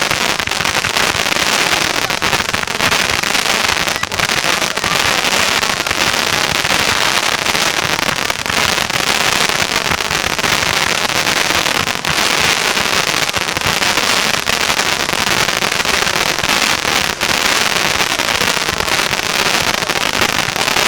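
Fireworks going off without a break: a dense, continuous mass of rapid crackling pops.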